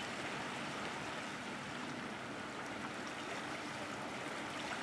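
Steady wash of shallow water, an even hiss with no separate wave breaks.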